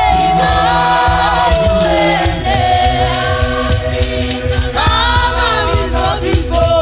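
Church choir singing a gospel song over a steady bass beat and jingling, rattle-like percussion. A single held note carries the first two seconds, and the full choir swells in about halfway through and again near the end.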